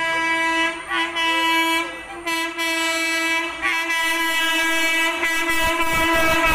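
Electric locomotive horn sounding in long blasts broken by short gaps as the train approaches at speed. The rumble of the train rises near the end as it reaches the platform.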